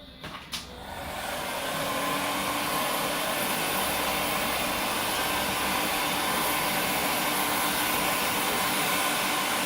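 Paint-stripping heat gun switched on with a click about half a second in, then its fan blowing steadily, building up over the first second or two, as it melts the wax cappings off a honey frame.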